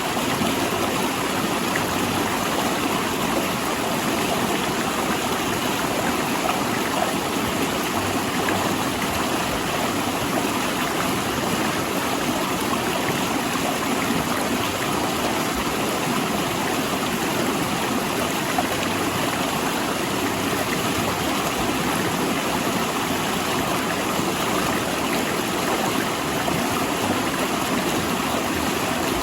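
Rushing mountain river flowing over and between large rocks: a steady, even rush of water with gurgling.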